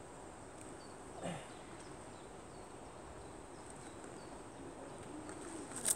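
Quiet lakeside outdoor ambience with a few faint, short bird chirps, and a sharp click near the end.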